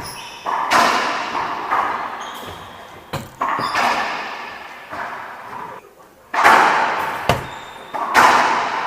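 Racquetball rally: the ball cracks off racquets and the court walls in an irregular series of sharp hits, roughly one every second or so, each ringing out in the long echo of the enclosed court.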